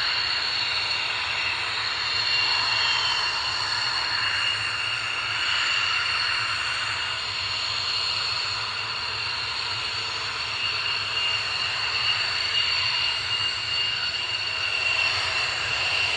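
F-16's jet engine running at low taxi power, a steady whine with two high tones over a rushing noise.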